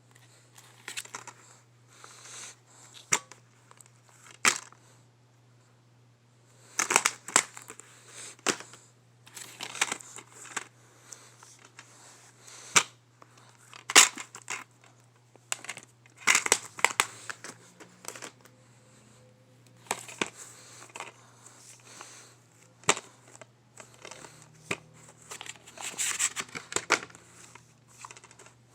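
Plastic packaging crinkling and tearing with irregular sharp clicks and snaps as DVD cases are unwrapped and handled, over a faint steady low hum.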